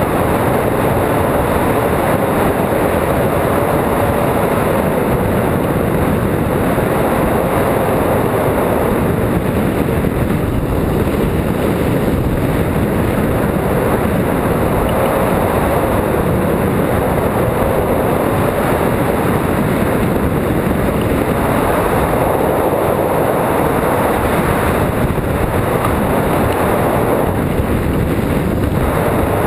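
Steady, loud rush of air buffeting the microphone of a camera mounted on a hang glider's wing in flight.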